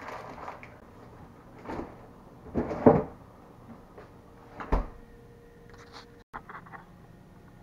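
A refrigerator door pulled open and swung shut, with knocks from items being handled inside; the loudest clunk comes about three seconds in, and the door shuts with a low thud about two-thirds of the way through.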